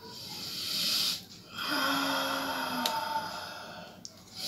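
A man taking long, deep breaths through his open mouth while inhaling steam, airy and rasping. A shorter breath is followed by a longer one of about two and a half seconds that carries a faint hum of voice.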